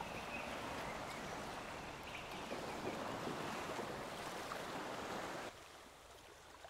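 Steady outdoor wind and water noise over a calm anchorage, dropping noticeably quieter about five and a half seconds in.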